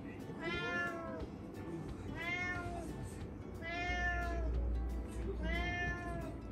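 A domestic cat meowing four times, evenly spaced about every second and a half to two seconds, each call rising and then falling in pitch. It is a cat begging for food at mealtime.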